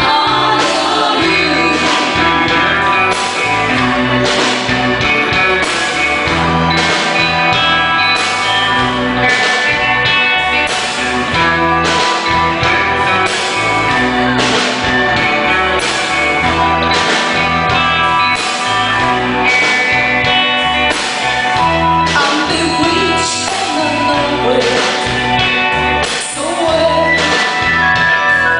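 A band playing a song: singing over guitar, with a steady beat.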